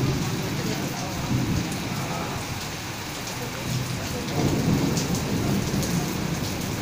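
Steady rain pouring down, with low rumbles of thunder swelling near the start and again about four seconds in.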